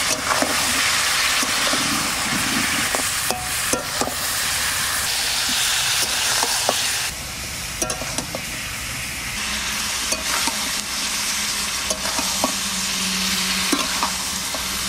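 Mutton pieces and sliced onions sizzling in hot ghee and oil in a metal kadai, stirred with a metal spatula that clicks and scrapes against the pan now and then. The sizzle eases a little about halfway through.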